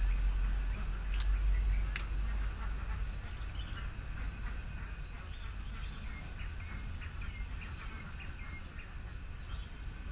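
Insects trilling at a steady high pitch; about four and a half seconds in, the trill turns into a fast, even pulsing. A low rumble runs underneath and is strongest in the first few seconds.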